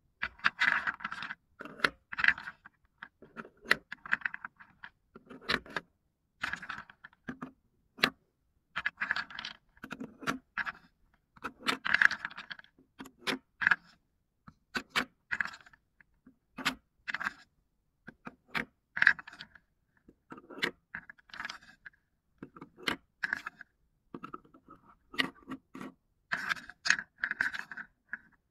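Wooden spoon scraping around a wooden bowl and knocking against wooden balls, the balls clacking together and rolling as each is scooped out and set down in a wooden cup. Bursts of scraping come every second or two, broken up by sharp single clicks.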